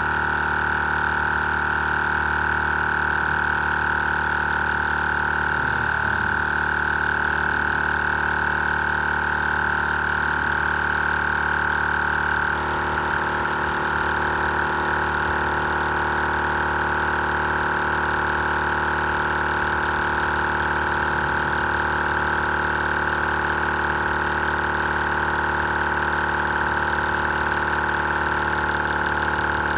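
Audew 2-cylinder 12-volt portable air compressor running steadily under load as it pumps a car tire up from 25 toward 32 psi. It is not too loud, and its tone shifts slightly about twelve seconds in.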